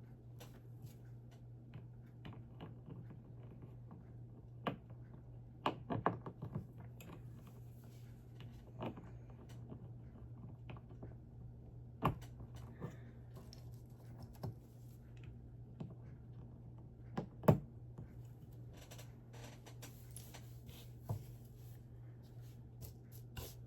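Plastic Lego bricks being handled and snapped together: scattered small clicks and taps, the sharpest about two-thirds of the way through, over a low steady hum.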